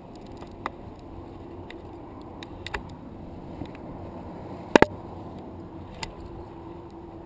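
Scattered clicks and light knocks from a climber moving up a granite crack, his climbing gear and hands and shoes against the rock, with a sharp double click about five seconds in, over a steady low rushing noise.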